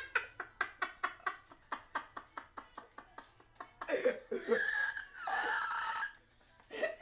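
A woman and a boy laughing hard. A fast run of short laughs trails off over the first three seconds, then a louder burst of laughter comes about four seconds in.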